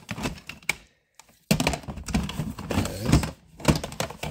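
Plastic video game cartridges and cases clacking and knocking against each other and the plastic tote as they are picked up and sorted through, with a brief pause about a second in.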